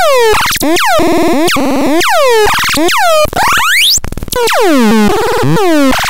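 TRAKANDAX hand-built electronic sound box putting out a loud string of synthetic zaps: pitched tones that each drop quickly in pitch, about two a second, broken about three and a half seconds in by a rising sweep and a short burst of noise.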